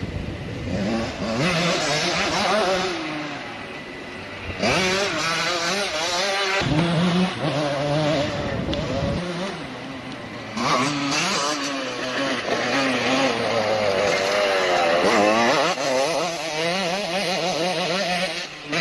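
Motocross bikes' engines revving hard as they pass, the pitch climbing and dropping again and again with throttle and gear changes, in three loud passes.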